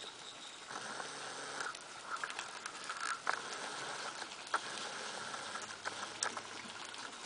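Corgi puppies' small paws pattering and scrabbling over dry dirt and gravel as the litter runs and plays, with many quick light ticks and some faint high-pitched squeaking.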